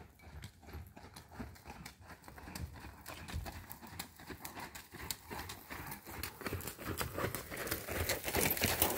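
A ridden horse's hooves beating a steady rhythm on arena sand footing, growing louder as the horse comes closer.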